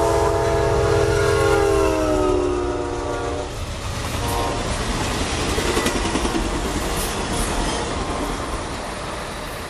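Amtrak P42DC diesel locomotive's horn sounding one long chord that drops in pitch as it passes and stops about three and a half seconds in. The passenger cars then rush by with wheels clicking over the rail joints, the rumble fading away.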